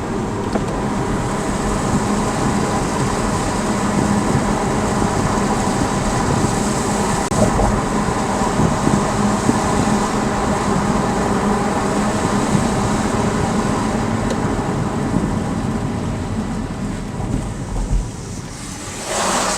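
Car under way, its engine and tyres giving a steady hum and road noise heard inside the cabin through a dashcam microphone, with a brief louder noise just before the end.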